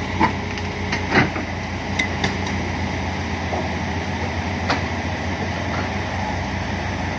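Diesel heavy-equipment engines running steadily under load, with several sharp metal knocks as the broken bulldozer is dragged onto the truck.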